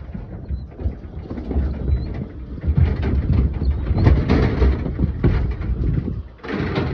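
Wind buffeting the microphone in an uneven, gusty rumble, with a brief noisy rush near the end.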